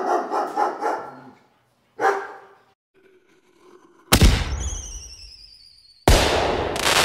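A dog barking in a quick run of barks, then one more bark about two seconds in. About four seconds in comes a loud firework bang followed by a falling whistle, and just after six seconds a second loud bang with crackling.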